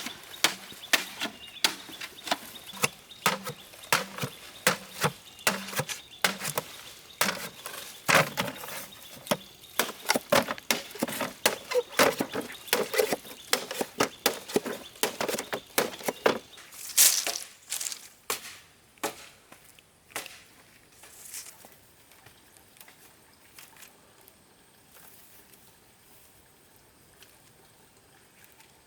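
Repeated strikes of a tool on bamboo, about two or three a second, for roughly the first sixteen seconds, then a few scattered knocks before it goes quiet.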